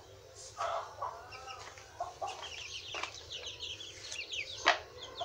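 Chickens clucking, with quick high bird chirps in the middle and a single sharp click near the end.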